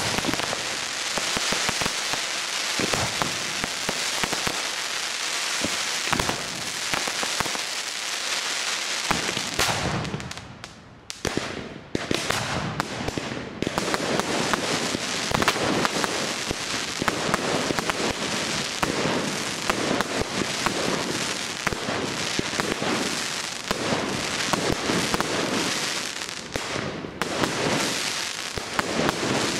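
Fireworks display: a dense, continuous crackle of rapid pops from crackling effects, thinning for a moment about ten seconds in before building up again.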